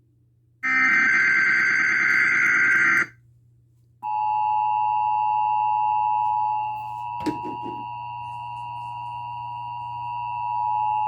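Emergency Alert System test signalling. A harsh digital data screech from the SAME header burst lasts about two and a half seconds. After a second's pause the steady two-tone EAS attention signal starts and holds, dipping in level midway, with a click about seven seconds in.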